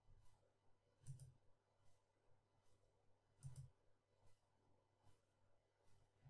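Faint computer mouse clicks, two sharper ones about a second and three and a half seconds in, over fainter evenly spaced ticks less than a second apart and a low steady hum.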